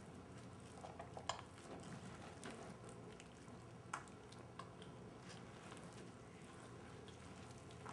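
Faint, scattered clicks and crunches of Chinese box turtles biting into monkey chow, with sharper taps about a second in and again near four seconds in.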